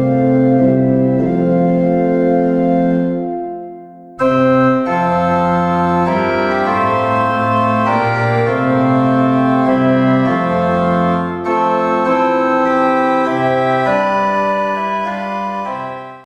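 Organ playing slow, sustained chords. The first phrase fades out about four seconds in, and after a short break a second phrase plays and dies away at the end.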